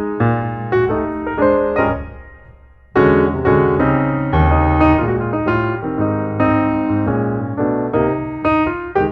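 Piano music: notes and chords struck in a steady rhythm, dying away about two seconds in and coming back in full about three seconds in.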